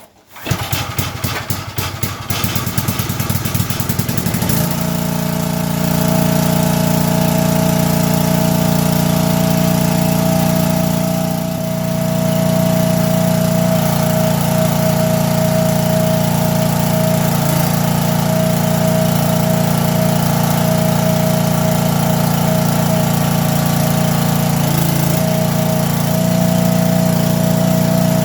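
Log splitter's small engine starting up, its firing quickening over the first few seconds before settling into a steady run, with a brief dip about eleven seconds in.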